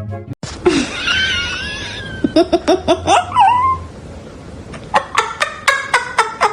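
Laughter: a quick run of short pitched bursts, with high wavering squeals.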